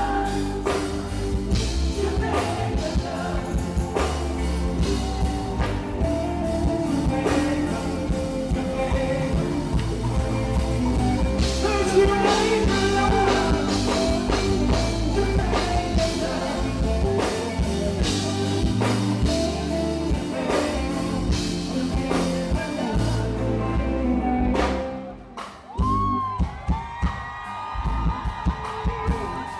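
Live band music with a steady drum-kit beat, bass and singing. Near the end the music drops out briefly and comes back sparser, with sliding tones.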